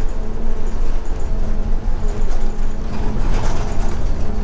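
Inside a rental-car shuttle bus, a steady low rumble with an even hum from the running bus.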